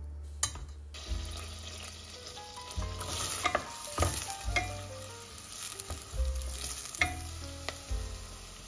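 Food sizzling in a frying pan as it is stirred, with a few sharp clicks of the utensil against the pan, over background music.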